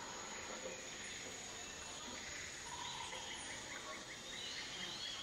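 Tropical forest ambience: a steady high insect drone over a low hiss, with scattered bird calls, including a quick run of ticking notes about two seconds in and short whistles later.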